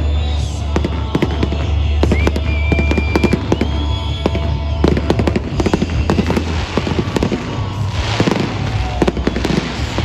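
Fireworks display going off: rapid bangs and crackling bursts in quick succession, with a dense crackling hiss about eight seconds in.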